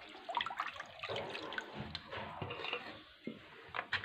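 Water being poured into a pot of sugar to start a sugar syrup, splashing steadily with a few light knocks, easing off near the end.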